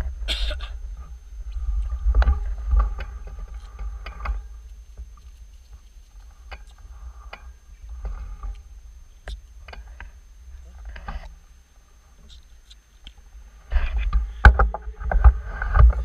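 Low wind rumble on the handlebar-mounted camera's microphone, with scattered clicks and knocks from the bike being handled. It gets louder and busier about two seconds before the end.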